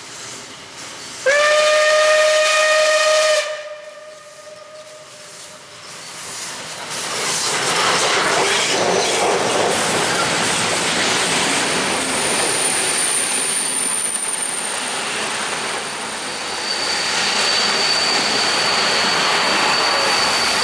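Steam locomotive whistle: one loud blast of about two seconds, about a second in. The locomotive and its passenger coaches then pass close by, with a dense rising noise of steam exhaust and wheels on rails that stays loud, and thin high squealing tones from the wheels joining later.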